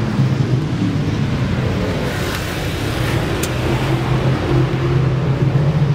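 Dirt-track race car engines running in a steady low drone, heard under the rushing and jostling noise of a microphone carried at a run.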